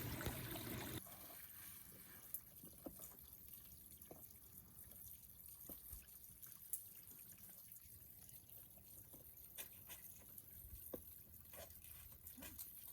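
Near silence with scattered faint drips of water. A soft rushing haze in the first second cuts off about a second in.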